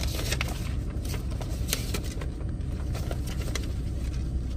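Rustling and light irregular clicks of medicine packets and their bag being handled, over the steady low rumble of a car's cabin.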